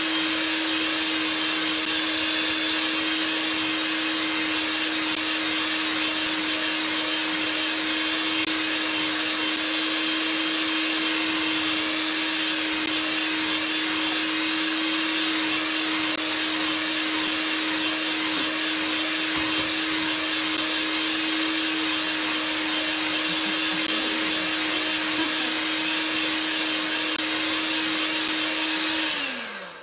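Electric hand mixer running at a steady speed, its beaters whipping heavy cream and melted chocolate into chocolate mousse in a glass bowl, with an even motor hum. Near the end it is switched off and winds down, the hum falling in pitch.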